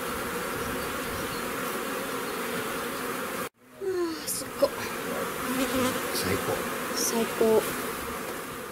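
Western honeybees buzzing over an opened hive: a steady mass hum from the colony, with single bees flying close by whose buzz swoops up and down in pitch. The sound cuts out for a moment about three and a half seconds in, then resumes.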